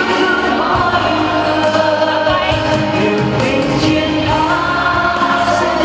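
Several voices singing a pop song together into microphones over amplified backing music.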